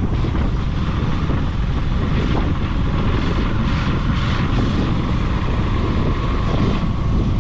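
Motorcycle riding at road speed: heavy wind rush over the microphone mixed with the steady running of a KTM Duke 200's single-cylinder engine.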